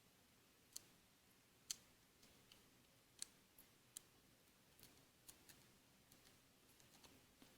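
Faint, irregular clicks and light scratches of a small hand tool picking and scraping old screen adhesive off a Samsung Galaxy S3's frame.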